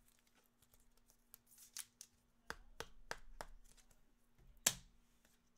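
Football trading cards being handled and flipped through by hand: faint clicks and snaps, four about a third of a second apart around the middle and a sharper one near the end.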